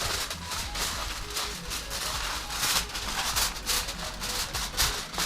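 Aluminium foil crinkling and rustling in irregular bursts as it is pressed and folded over a takeout tray.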